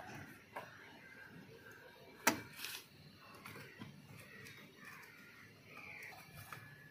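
Faint handling noise of car wiring and plastic connectors at an engine-bay fuse box, with a few light clicks and one sharp click a little over two seconds in.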